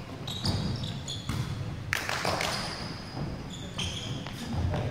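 Volleyball being hit and struck back and forth in a rally: about five sharp smacks of hands and arms on the ball, a second or so apart, each ringing out in the echo of a large sports hall.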